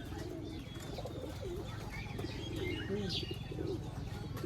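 Domestic pigeons cooing: repeated low, wavering coos overlapping one another, with a few short higher chirps.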